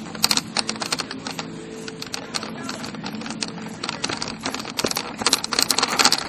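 Rapid, irregular clicking and rattling: handling noise from a camera-mounted Nerf blaster as it is carried and swung about, with the clicks coming thicker near the end.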